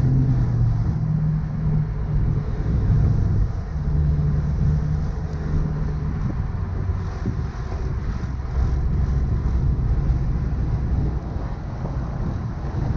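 Car engine running while driving, its low note rising and falling, over steady road and wind noise.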